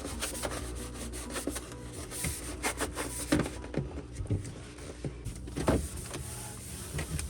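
Cloth rubbing and wiping over refrigerator surfaces, with scattered light knocks and clatters.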